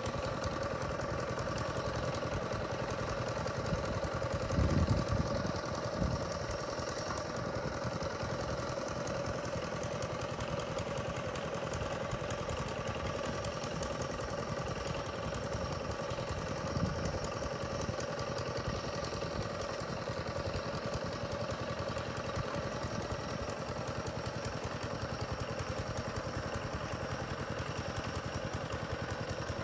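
Two-wheel walking (hand) tractor's engine running steadily at a slow, even pace while it works a flooded rice paddy. A brief low thump comes about five seconds in and another around seventeen seconds.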